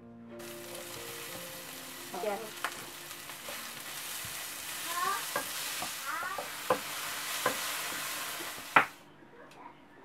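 Strips of red pepper sizzling in a frying pan while being stirred with a spatula, with scraping strokes and sharp taps of the spatula against the pan. The sizzle starts suddenly just after the beginning and stops about a second before the end; the loudest tap comes near the end.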